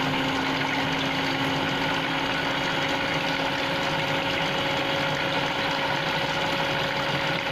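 Electric stand mixer running steadily at a constant speed, its motor humming as the beaters mix cake batter.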